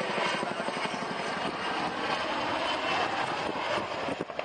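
Boeing Chinook HC2 tandem-rotor helicopter in flight, its two rotors beating in a rapid, steady rhythm.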